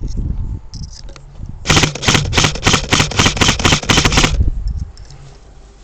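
Airsoft rifle firing a rapid string of about fifteen shots over some two and a half seconds, roughly six shots a second, starting a couple of seconds in.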